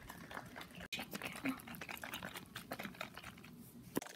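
A capped plastic Elmer's glue bottle, filled with warm water and leftover glue, shaken hard by hand: the water inside sloshing, with quick irregular clicks and knocks from the bottle.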